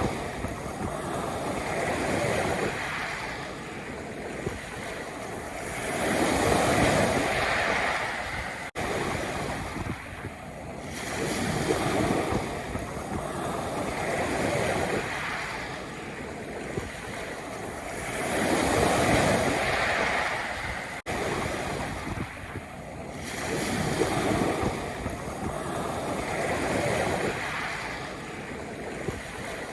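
Sea waves breaking and washing over a pebble beach, the surf swelling and falling back every few seconds. The sound cuts out for an instant twice.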